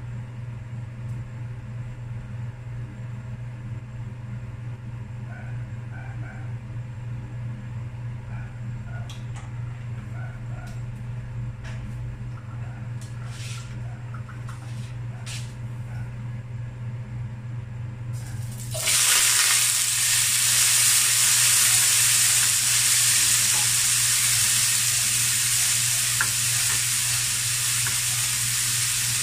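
A steady low hum with a few faint ticks while cooking oil heats in an empty nonstick wok; about two-thirds of the way in, a loud sizzle starts suddenly as garlic, onion and tomatoes hit the hot oil, and it keeps sizzling as they are stirred with a spatula.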